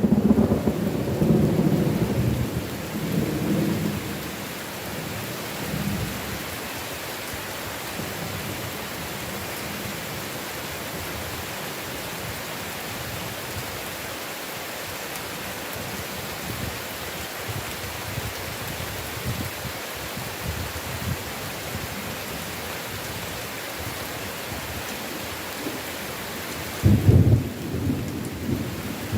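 Heavy rain falling in a steady hiss, with thunder rumbling at the start and dying away over a few seconds, then a sudden loud thunderclap near the end.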